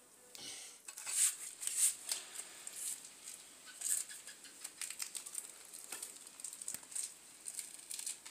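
Thin plastic bags rustling and crinkling in irregular crackles as small liquid-filled bags are handled and knotted shut.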